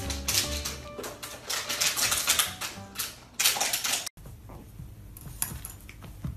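Rapid, dense clattering clicks, with music in the first second, cutting off abruptly about four seconds in to a much quieter stretch.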